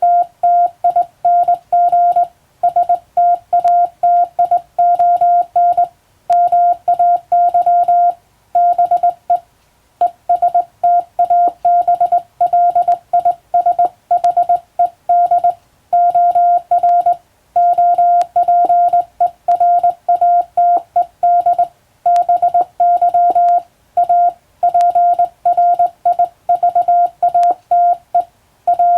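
Morse code sent by hand on a telegraph key: a steady single-pitch beep keyed rapidly into short dots and longer dashes, with brief pauses between groups.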